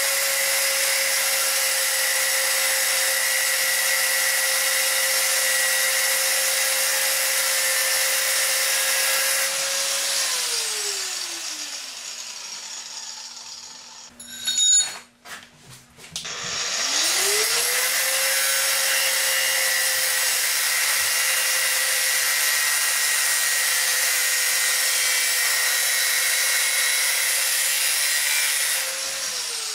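Small angle grinder with a cut-off disc running and cutting into a stainless steel water pipe with a steady high whine. About ten seconds in the motor winds down, a few sharp hammer knocks follow, then the grinder spins back up and cuts again, winding down at the very end.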